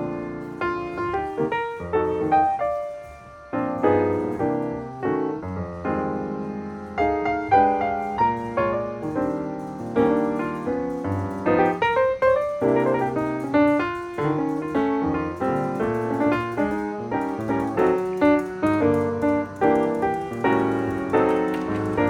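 Solo piano music: a melody over chords, with a brief pause about three seconds in.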